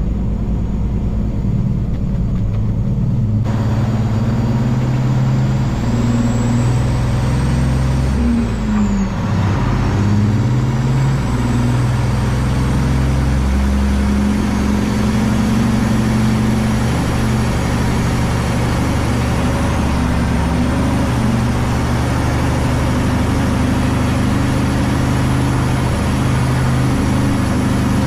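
Peterbilt semi truck's diesel engine running steadily as the truck drives, its engine note shifting in pitch a couple of times, about a third of the way in and again a few seconds later.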